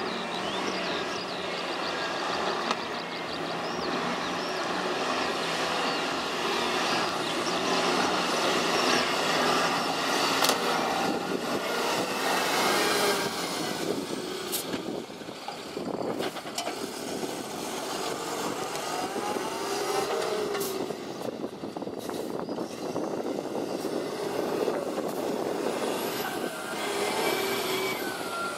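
Diesel engines of a Liaz 18.33 and a DAF LF truck running and revving as the trucks manoeuvre at low speed, with a few sharp knocks along the way.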